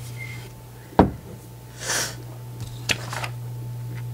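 Food packages being handled on a table: a sharp thud about a second in as an item is set down, a short swish just before two seconds, and a click just before three seconds, over a steady low electrical hum.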